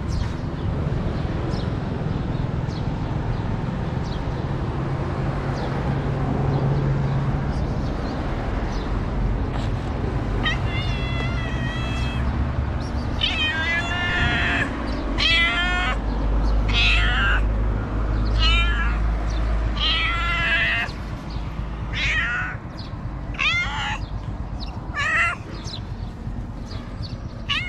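A ginger stray cat meowing again and again, about a dozen meows spaced a second or two apart, starting about a third of the way in. Before the meows there is only a steady low rumble.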